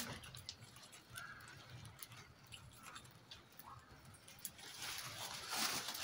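European goldfinches pecking at seed on feeding trays: scattered light clicks. A short burst of hissing noise comes at the start and another about five seconds in.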